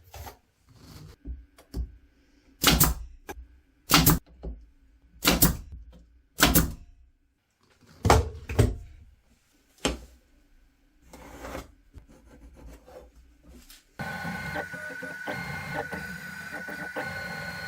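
A series of sharp knocks and clatter, the loudest about a second and a half apart, then, a few seconds before the end, a steady machine whine sets in, with a constant tone and other tones that step up and down.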